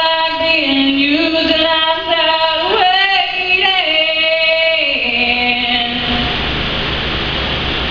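A woman singing unaccompanied into a microphone, one voice holding long notes with slides between them. About six seconds in the singing stops and a steady noisy hiss of the room follows.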